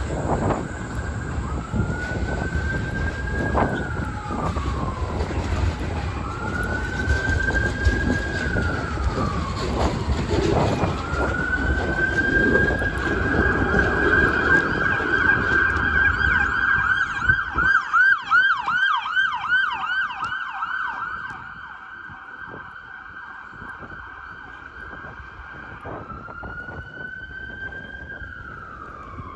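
Emergency-vehicle siren: several slow wails rising and falling in pitch, then a fast yelp for several seconds, and another wail near the end, over the rumble of street noise that fades away partway through.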